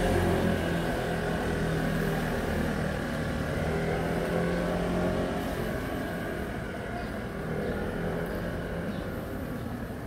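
A motor vehicle's engine running close by and fading as it moves away, its hum dying out over several seconds against steady street noise.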